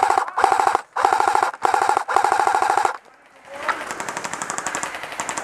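Airsoft electric gun firing full-auto, about five short bursts of rapid clicking in quick succession, each with a steady gearbox buzz. After about three seconds the bursts stop, and a quieter, steady rapid rattle follows.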